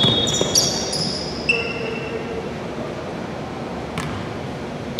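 Basketball shoes squeaking on a hardwood court, with a few ball bounces. The squeaks come in the first two seconds, with a single sharp knock about four seconds in.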